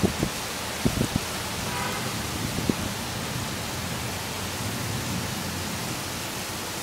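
Steady hiss of heavy summer rain, with a few short, soft thuds in the first three seconds.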